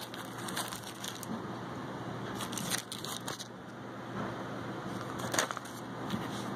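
Clear plastic packaging crinkling and rustling as cards of lace are handled, with a few sharper crackles about two and a half to three seconds in and again near five and a half seconds.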